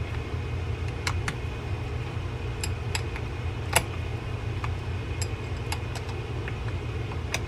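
Sparse small metallic clicks and taps as a steel wrench and the splined handle-nut retainer are handled and fitted over the handle nut of a Penn Squall 30LW reel, over a steady low background hum. The loudest click comes a little past the middle.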